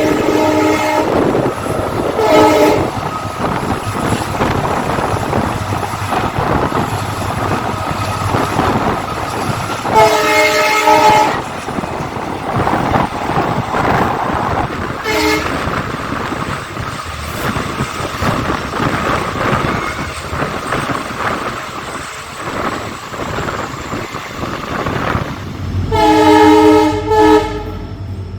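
WDG4 diesel locomotive's multi-tone air horn sounding in repeated blasts: one ending about a second in, a short one about 2 s in, a longer one about 10 s in, a brief toot about 15 s in, and two close together near the end. Between the blasts, train wheels clatter steadily over the rails as the coaches pass.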